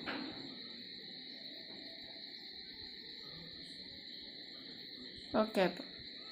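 Steady high-pitched chirring of crickets in the background, with a small knock at the start and two short voice-like sounds a little over five seconds in.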